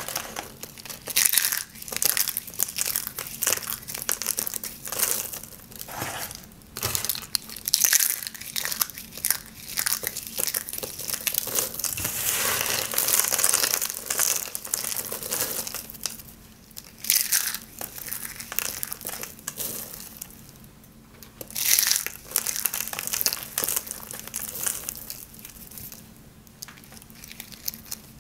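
Dry, hard soap curls and shavings crushed and crumbled between the hands: bursts of crisp crunching and crackling in an irregular rhythm, with short quieter pauses between handfuls.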